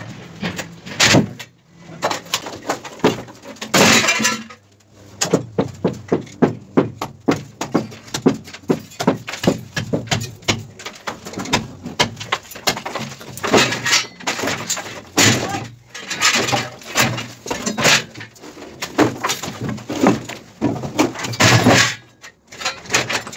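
Formwork being stripped from a concrete wall: a steady clatter of sharp wooden and metal knocks and bangs, several a second, with a few louder clattering crashes.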